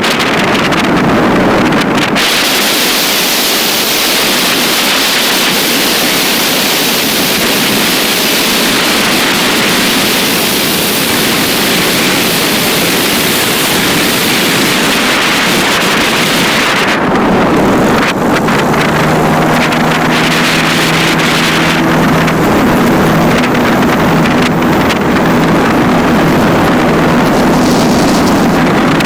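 Aircraft landing in a crosswind: a loud, steady rush of engine and wind noise, with heavy wind buffeting on the microphone. About two-thirds of the way through, a steady engine hum with several pitches comes in over the rush.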